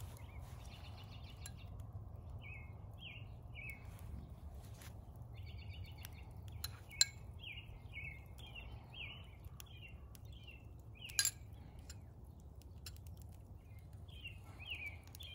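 A songbird singing runs of short, repeated chirping notes, about two a second, over a low steady rumble. Two sharp clinks of a metal spoon on a bowl, about halfway through and again near three-quarters of the way, are the loudest sounds.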